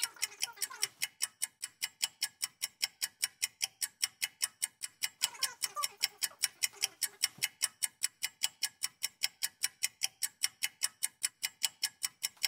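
Clock ticking rapidly and evenly, about five ticks a second: a sped-up ticking for time passing.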